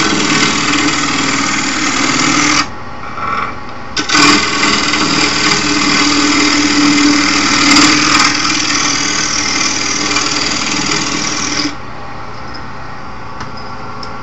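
Wood lathe running while a turning tool cuts the spinning wood blank, a loud scraping hiss over the lathe's steady tone. The cutting breaks off about two and a half seconds in, resumes around four seconds, and stops near the end, leaving the lathe motor humming on its own.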